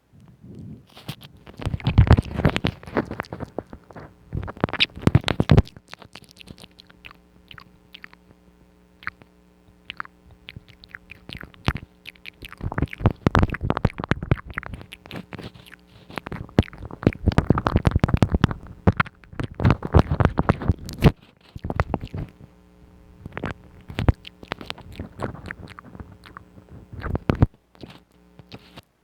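ASMR mouth sounds close to the microphone: rapid wet clicks and smacks in dense runs, thinning out for a few seconds after the first run and pausing briefly a little past the twenty-second mark.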